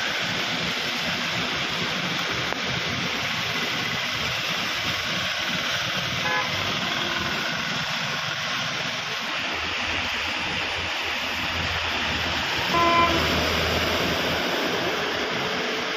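Steady hiss of heavy rain with traffic splashing through floodwater on the road. A vehicle horn honks briefly about six seconds in, and again, louder, about thirteen seconds in.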